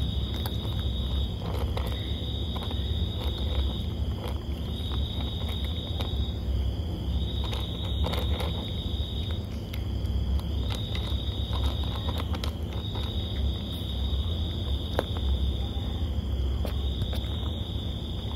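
Cat crunching dry kibble, with many short sharp crunches scattered irregularly, over a steady low rumble. A high, thin, steady insect-like tone comes and goes every second or two.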